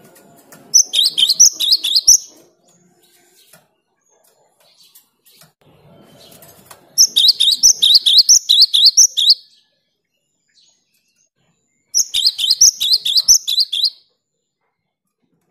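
A cinereous tit (gelatik batu) in full song: three bursts of quick, repeated high notes, each lasting about two seconds, with pauses of a few seconds between them.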